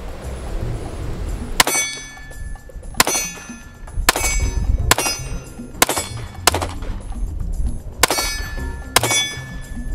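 Glock 43X 9mm pistol with a ported barrel firing eight shots at an uneven pace, roughly a second apart. Each shot is followed by a short ringing metallic clang.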